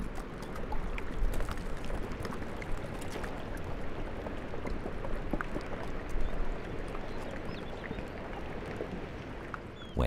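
Water lapping and sloshing among floating chunks of glacier ice, with many small clicks and crackles.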